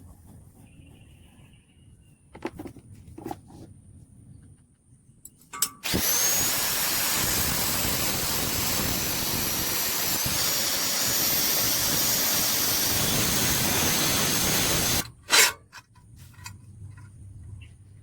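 A metalworking tool runs with a steady loud noise for about nine seconds, starting and cutting off abruptly. A few clicks and knocks of handling metal come before and after.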